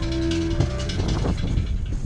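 Background music from the video's soundtrack: a held tone over a steady bass.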